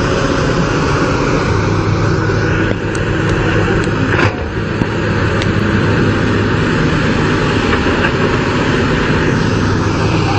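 Excavator engine running steadily at a constant pitch, with a few light clicks and a knock about three to four seconds in.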